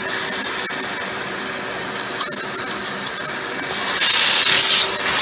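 Small vacuum cleaner running, its hose sucking loose coffee grounds out of the burr chamber and chute of a coffee grinder. The steady rushing noise grows louder about four seconds in.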